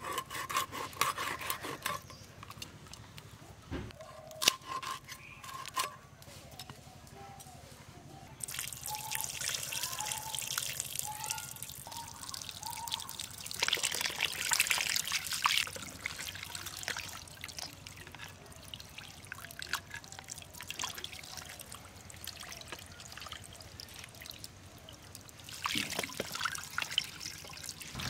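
Water poured over cut hilsa fish pieces in a clay bowl, trickling and splashing as they are rinsed by hand. It comes in two spells: a long one starting about a third of the way in and a shorter one near the end. Before that comes a run of sharp scraping clicks as the fish is cut on a blade.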